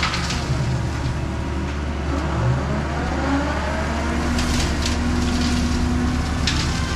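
John Deere 326E skid steer's diesel engine running steadily under load, driving a hydraulic brush cutter. Brush and small wood crack and snap a few times, about halfway through and again near the end.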